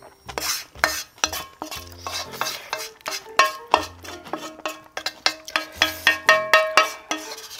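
Eating utensils clinking and scraping against a dish of ramen in quick, irregular strokes, over light background music with a steady bass line.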